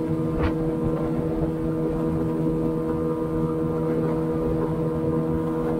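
Outboard motor on a small aluminium boat running steadily under way, a constant engine drone with no change in speed.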